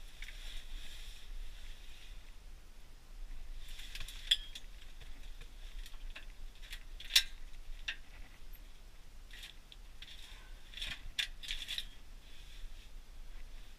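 Scattered light clicks and rustling from fishing gear being handled in an ice-fishing shelter, with two sharper clicks about four and seven seconds in.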